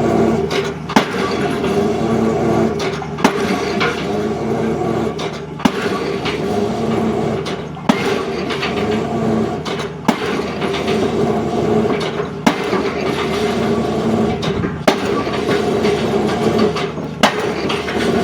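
Excavator drop hammer striking a square concrete pile about every two seconds, eight sharp blows, over the excavator's diesel engine running steadily.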